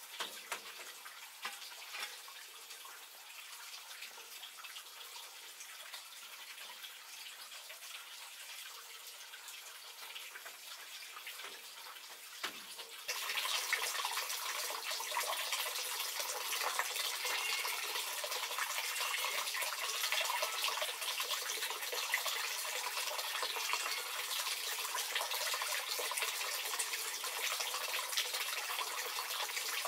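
Water running in a steady stream, with a few small clicks early on; it becomes much louder about 13 seconds in.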